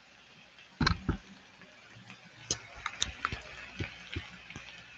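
Silicone spatula stirring chayote and egg in a pan, knocking and clicking against the pan at an uneven pace, with the two loudest knocks about a second in.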